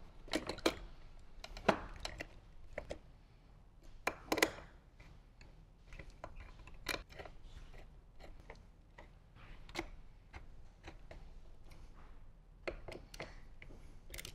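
Scattered clicks, taps and light knocks of a motorcycle radio head unit and its small mounting hardware being fitted into the fairing bracket by hand and screwed down. The louder knocks come near the start and about four seconds in, with a quick cluster of clicks near the end.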